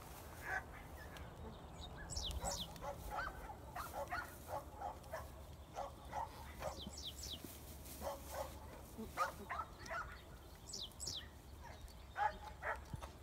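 Faint, short calls from the dog and goat herd, repeating every second or so, with three pairs of high, falling chirps.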